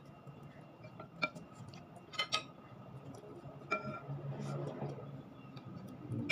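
Scattered light clicks and clinks of dishes while eating by hand, a few of them with a brief glassy ring.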